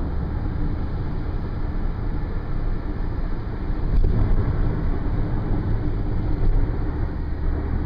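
Steady road noise inside a moving car's cabin: a low rumble that swells slightly about four seconds in.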